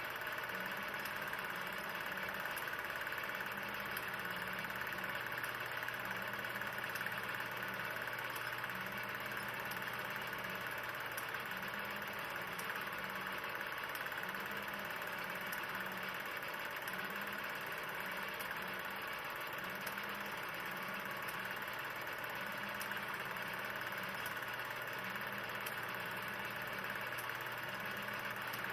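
16 mm film projector running steadily: an even mechanical whirr with a low hum and a soft low pulse about every two seconds.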